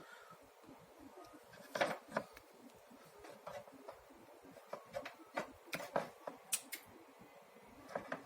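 Scattered light clicks and taps, about a dozen, thickest in the middle, from hands and small tools handling the vacuum cleaner's power-cord wires while the broken conductor is being joined.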